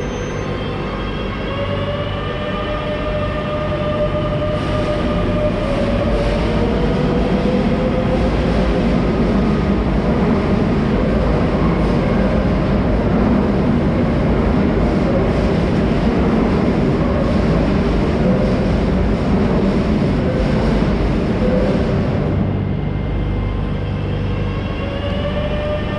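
Metro train running: electric traction motors whine in several stacked tones that rise in pitch as it gathers speed over the first few seconds, then a steady noise of wheels on the rails at speed. The hiss drops suddenly about 22 seconds in, and the motor tones return near the end.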